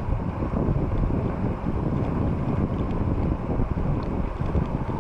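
Wind buffeting the camera microphone as a fat-tire e-bike rolls along the street, with a steady low rumble and no motor or voice standing out.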